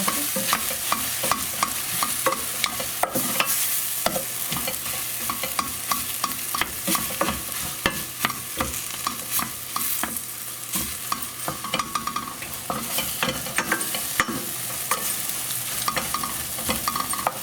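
Tomatoes, onion and bacon sizzling in a frying pan while a utensil stirs and mashes them, with frequent short scrapes and taps against the pan.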